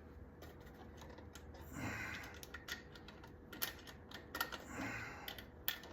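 Scattered small clicks and taps of a USB wall outlet, its plastic spacers and mounting screws being handled and fitted into the wall box, with two short grunts.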